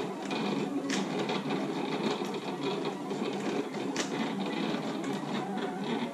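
Silhouette Cameo electronic vinyl cutter running a cut: its motors drive the blade carriage and roll the vinyl sheet back and forth in a continuous busy whirring, with a couple of sharper clicks about one and four seconds in.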